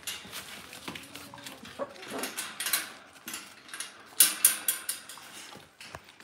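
Dalmatian mother and her 4½-week-old puppies moving about: scuffling with sharp clicks and scrapes, and a clinking metal food bowl as the mother eats. The loudest clatter comes about four seconds in.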